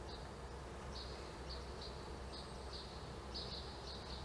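Faint insects chirping in short, high pulses of unchanging pitch, repeating unevenly about twice a second, over a low steady hum.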